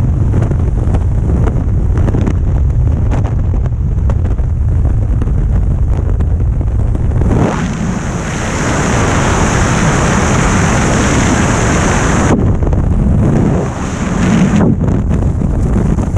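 Freefall wind rushing over a helmet-mounted camera's microphone. About halfway through the sound turns to a brighter hiss for several seconds as the parachute deploys and opens, then eases to a lower, gustier rush under the canopy.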